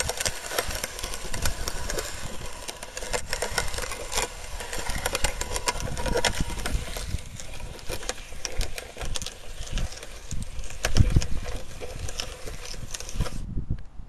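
Hand-cranked cast-iron Enterprise No. 10 meat chopper grinding wet cement mixed with weeds and mulch. The auger gives a dense, irregular crunching and crackling of grit over a low rumble, which cuts off sharply near the end.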